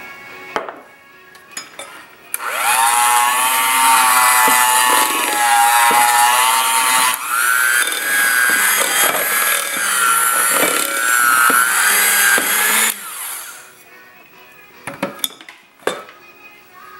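Electric mixer running for about ten seconds, its pitch wavering and jumping higher about halfway through, as it beats flour into butter-and-sugar cookie dough. A few clicks and knocks come before it starts and after it stops.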